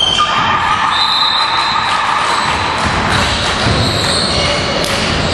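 An indoor basketball game on a hardwood court: a ball bouncing, high sneaker squeaks and players' voices echoing in a large gym.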